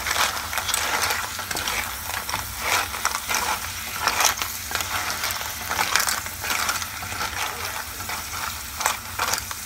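Clams in their shells sizzling in chili-paste and soy sauce in a saucepan, stirred so that the shells and spoon clatter against each other and the pot in irregular clicks.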